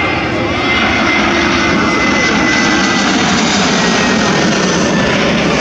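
Twin-engine jet airliner passing low overhead on landing approach, gear down: loud, steady jet noise that swells about a second in, with a high engine whine that drops slightly in pitch as it goes by.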